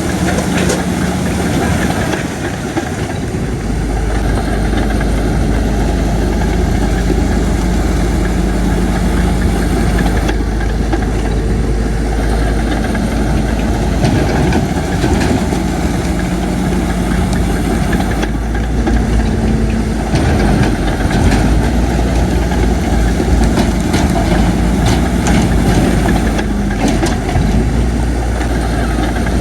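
Heavy diesel engine of earthmoving machinery running steadily, with a deep hum that strengthens about three seconds in and scattered short clanks.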